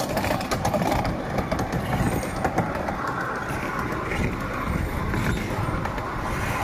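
Ride-on miniature railway train running along the track, heard from one of its passenger cars: a steady rumble of wheels on rails with many small clicks and knocks.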